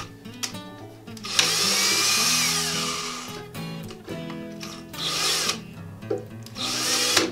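Power drill run in three bursts, the first about two seconds long with its pitch sagging, the other two short. Background music underneath.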